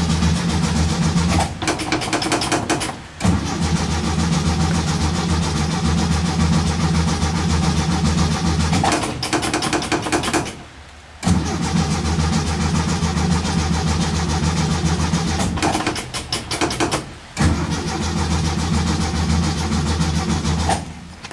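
1967 VW bus's air-cooled flat-four being cranked over by the starter in several long bursts with short pauses between them, turning over steadily without catching. The fuel filter is dry, so no fuel is reaching the carburettor after a year of sitting.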